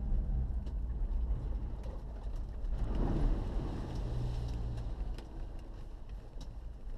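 Off-road vehicle driving over a rutted dirt track, heard from inside the cabin: a low rumble of engine and tyre noise, with a surge of noise about three seconds in as it ploughs through mud and throws spray, and a few sharp ticks near the end.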